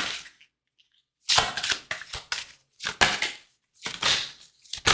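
Tarot cards being shuffled, in a run of about six short, crisp bursts with brief silences between them.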